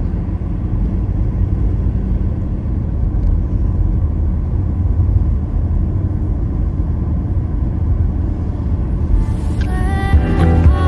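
Steady low road and engine rumble heard inside a moving car's cabin. Music comes in near the end.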